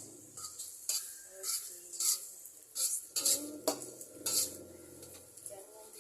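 Metal utensil stirring, scraping and clinking against cookware, about seven irregular strokes.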